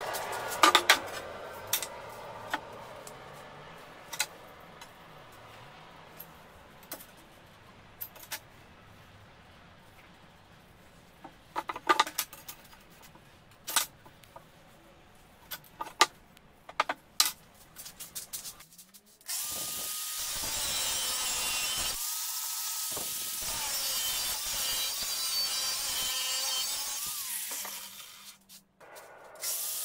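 Scattered knocks and clinks of steel strips being handled on a wooden workbench. About two-thirds of the way in, an angle grinder starts cutting steel: a loud, hissing grind with a whine that dips and wavers under load. It stops shortly before the end and starts again.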